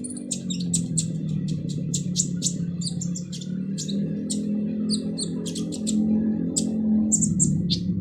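Kolibri ninja sunbird giving rapid, harsh, high chirps, several a second, in a continuous chattering song, over a steady low hum.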